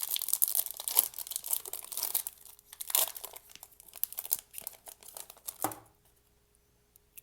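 Foil trading-card pack wrapper being torn open and crinkled, a dense crackling rustle that stops about six seconds in.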